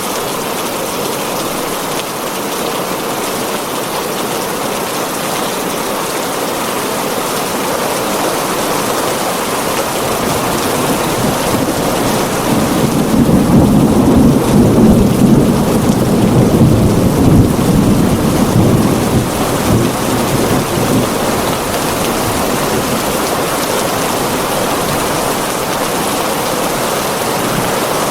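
Heavy rain drumming steadily on a tin roof, with a long low roll of thunder that builds up, peaks about halfway through and fades out again.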